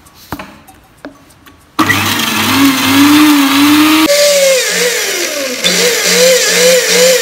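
Preethi mixer grinder's motor whipping egg whites with garlic, sugar, lemon juice and salt in its small jar, the first stage of blender mayonnaise. It switches on about two seconds in with a loud whine, then from about four seconds its pitch rises and dips two or three times a second as the pulse button is worked.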